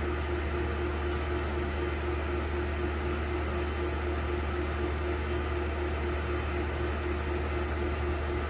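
Tormach PCNC 1100 Series 3 CNC mill spindle running steadily at about 4,000 RPM with no cutting load: a constant hum with a steady tone.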